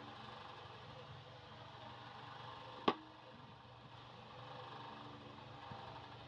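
A single sharp plastic click from a countertop utensil sterilizer-organizer about three seconds in, over faint steady room noise.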